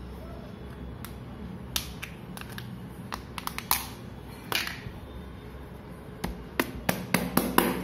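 Plastic play-dough tubs and lids being handled, giving scattered light clicks and taps, more of them near the end, over a low room hum.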